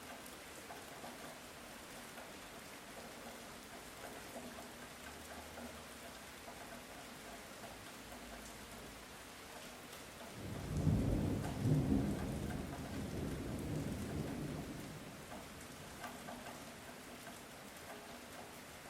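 Light rain falling steadily, with a roll of distant thunder rumbling up about halfway through, peaking briefly, then fading away over a few seconds.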